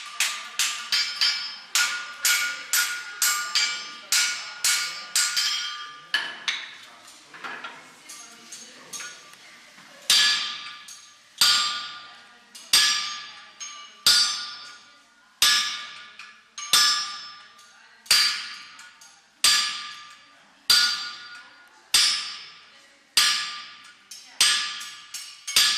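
Blacksmith's hammer striking iron on an anvil, each blow ringing out. Quick blows, two or three a second, for the first six seconds, then a few lighter, irregular taps, then from about ten seconds in heavier single blows about every second and a half.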